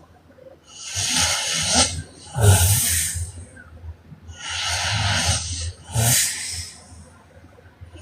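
A woman snoring in deep sleep. There are two breaths, each a long breathy rush followed by a louder, low buzzing snore, the second snore short.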